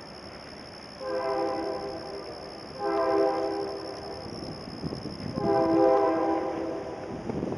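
Train horn sounding three long blasts, each a chord of several tones, the second following shortly after the first and the third a little over a second later.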